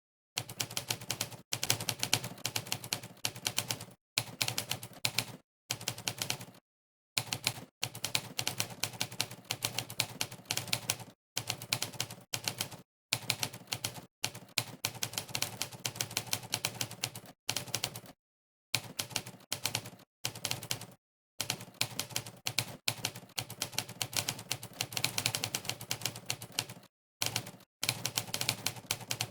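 Monkeytype's typewriter keystroke sound effect, played on each key press during fast typing: rapid clacks, many a second, in runs broken by short, completely silent pauses.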